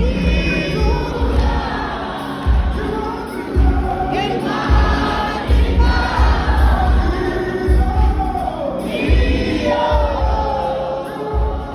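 Live gospel music: a choir singing over a band with a heavy, pulsing bass, a crowd singing along.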